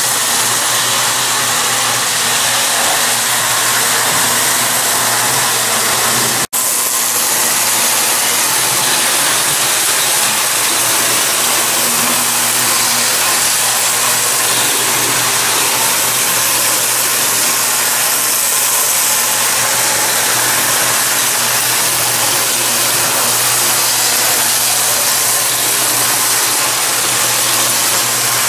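Marx 333 die-cast toy steam locomotive and its lighted passenger cars running steadily on a metal track loop, a continuous whirring rattle of the electric motor and wheels with a low steady hum under it. The sound cuts out for an instant about six and a half seconds in.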